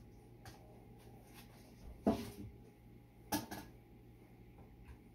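Two sharp clattering knocks of kitchen utensils and cookware being handled on the stove, about a second and a quarter apart, over a low steady hum.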